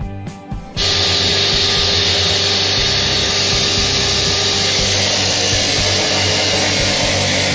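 Brief guitar music, then, under a second in, an abrasive cut-off saw starts in loud and steady, its wheel grinding through a solid steel rod.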